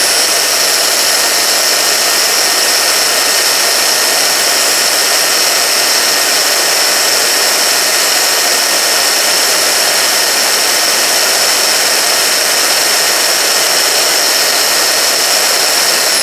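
Makita 9403 4x24 belt sander's 11-amp motor and belt running steadily at full speed with a constant high whine, a pencil point held lightly against the moving sanding belt. It is switched off at the very end and its whine begins to drop.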